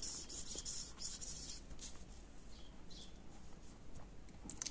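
Marker pen writing on paper: a run of quick, faint scratchy strokes in the first couple of seconds, then a few sparser ones.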